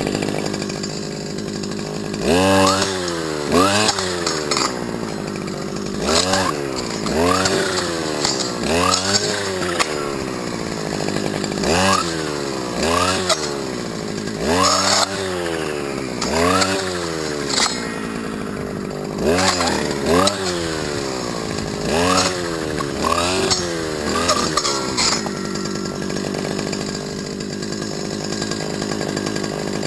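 Stihl FS250 brush cutter's two-stroke engine being revved hard from idle more than a dozen times, a rev every second or two, each one rising and falling back. It settles to a steady idle over the last few seconds.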